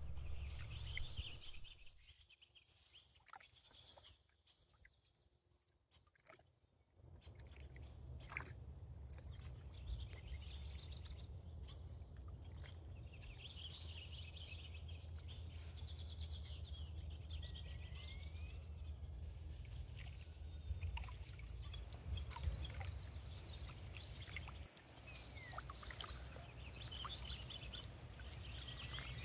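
Small birds chirping and calling at intervals, over light water trickles and drips from packraft paddle strokes and a steady low rumble. A few seconds in, everything drops to near silence for about five seconds.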